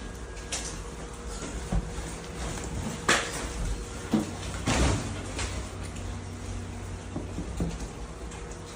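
Doors and cupboards rattling and knocking as a building shakes in an earthquake, over a low steady rumble. Irregular knocks come through, the loudest about three and five seconds in.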